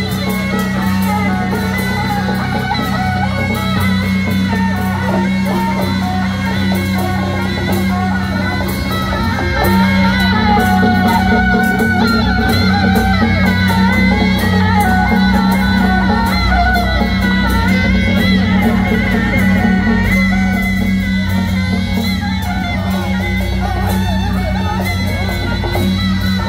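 Loud music with guitar, drums and a steady low bass, overlaid by a dense run of sharp crackling clicks. It swells a little louder about ten seconds in and eases back near the end.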